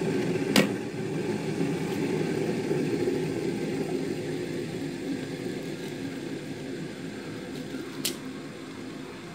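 A steady low mechanical hum that slowly fades, with two sharp taps on a wooden cutting board, one about half a second in and one near the end, as avocado is cut and pieces are set down.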